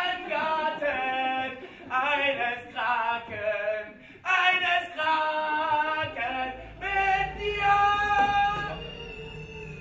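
Voices singing unaccompanied in short held phrases, ending on a longer held note near the end as the singing fades. A low steady hum comes in about two-thirds of the way through.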